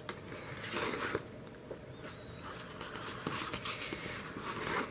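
Faint rustling of paper pages as an album's photobook is leafed through and a page is turned, in a few short soft sweeps.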